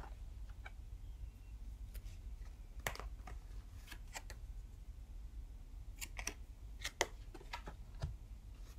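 Picture cards being handled and flipped through one by one: irregular light clicks and snaps of card against card, over a low steady hum.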